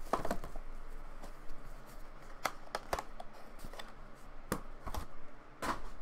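Hands unwrapping and handling trading cards in hard clear plastic cases. A short plastic crinkle comes at the start, then a few separate sharp plastic clicks and taps as the cases are picked up and set down.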